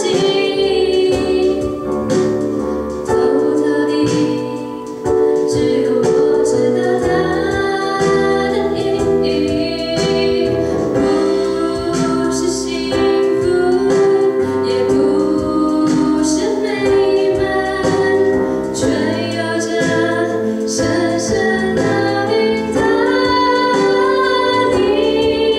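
A woman sings a Chinese-language pop song into a microphone over instrumental accompaniment.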